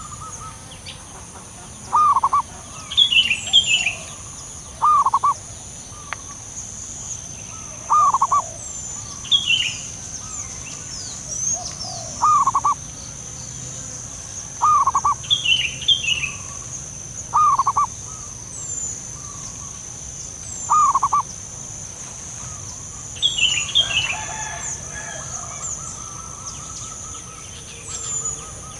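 Zebra dove calling, short cooing notes repeated about every three seconds, with a few higher chirps from other birds and a steady high-pitched hum behind.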